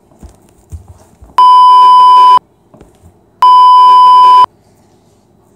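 Two loud censor bleeps, each a steady one-second tone about a second apart, edited over speech. A few soft footfalls of socked feet on the wet floor come just before the first bleep.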